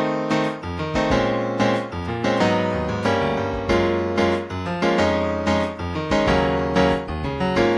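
Piano-toned keyboard playing a pop song's keyboard part: repeated struck chords over a low bass line, notes fading between strikes.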